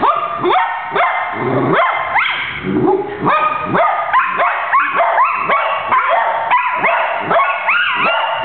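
Pet dogs howling and yipping together, 'singing' along to a song, in a rapid string of short wails that slide up and down in pitch and often overlap.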